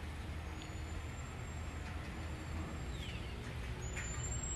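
Steady low outdoor background rumble, with a few faint, short, high chirps.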